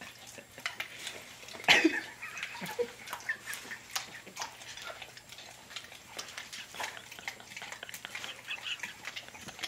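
Dog licking and smacking its lips over and over, working at peanut butter stuck in its mouth: a run of small wet clicks and smacks. One short, louder sound comes about two seconds in.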